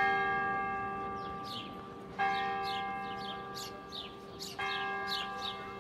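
A large bell tolling with slow, even strokes: three strikes about two and a half seconds apart, each ringing on and fading. Small birds chirp in short, quick calls between the strokes.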